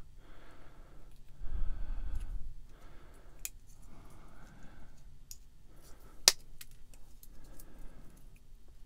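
Heavy-duty side cutters snipping a small plastic part, with sharp clicks as the jaws cut through, the loudest about six seconds in, amid soft handling noise.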